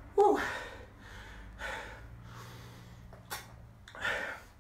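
A man breathing hard after high-intensity interval exercise: a loud gasping breath about a quarter second in, then deep breaths about every two seconds, with a short click in between.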